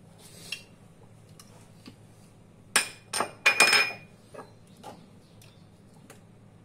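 Glass olive-oil bottles clinking against each other as they are handled and set down, a quick cluster of sharp clinks with a brief ringing tone about three seconds in, then a couple of lighter knocks.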